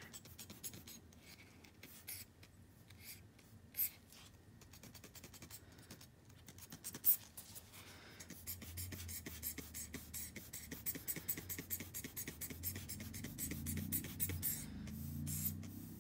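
Short puffs of air hissing from a hand-squeezed rubber bulb air blower with a metal nozzle, blowing alcohol ink across a tile. The puffs are sparse at first and become quick and repeated from about halfway, with a low rumble near the end.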